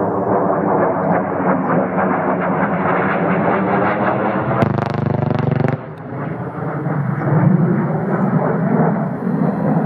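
Panavia Tornado's twin RB199 jet engines rumbling as the aircraft closes in on a strafing run. About halfway through comes a burst of just over a second of rapid Mauser BK-27 27 mm cannon fire, merging into a continuous buzz, which stops abruptly.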